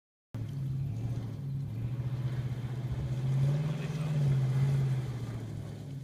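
Nissan Titan pickup's 5.6-litre V8 engine running as the truck drives through a shallow river. The sound starts suddenly about a third of a second in. The engine note rises and gets louder around four seconds in with more throttle, then eases and fades near the end.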